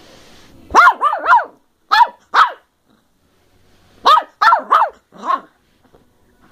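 Bedlington terrier puppy barking in play: high-pitched yappy barks in two quick bursts, about five within the first couple of seconds and four more a few seconds later, given from a play bow.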